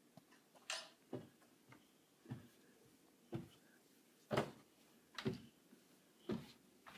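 A child's footsteps going slowly down wooden stairs, a soft thud for each step, about one a second.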